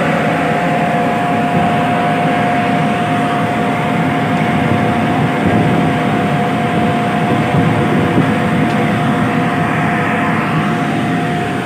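Steady ship's machinery noise, a dense even rumble with a constant mid-pitched whine running through it.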